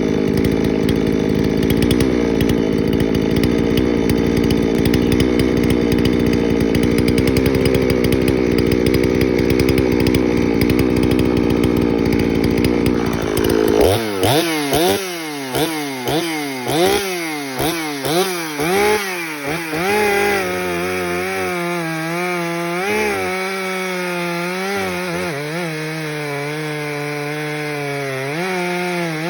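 Woods-ported Husqvarna 254XP two-stroke chainsaw running flat out for about fourteen seconds. It is then blipped on and off the throttle several times, the pitch swinging up and down, and settles into a steady idle about twenty seconds in.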